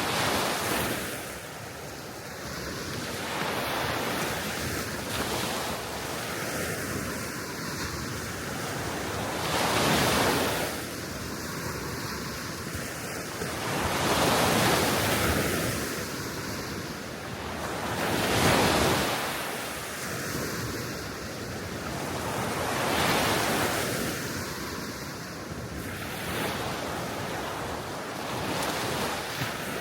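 Soft Baltic Sea waves breaking and washing onto the shore, swelling and falling back every four to five seconds, with steady wind.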